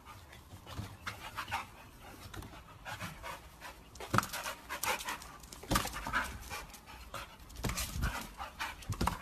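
A dog panting in quick, uneven breaths, with a few louder knocks or thumps in the second half.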